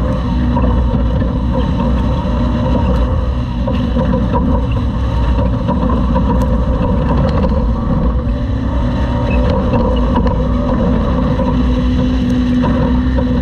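Class 2000 off-road race truck running at speed, heard on board: a steady engine drone with dense road and chassis noise and a few faint clicks and rattles.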